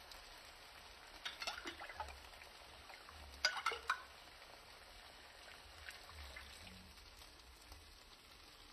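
Flat green beans sizzling gently in a frying pan. A metal spoon clinks and scrapes against a glass cup about a second in, and again more loudly at about three and a half seconds, as tomato sauce is spooned into the pan.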